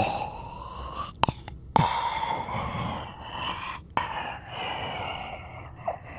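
Zombie vocal sound effect: a raspy, breathy voice with a strained pitched tone that rises at the start, broken by a few sharp clicks.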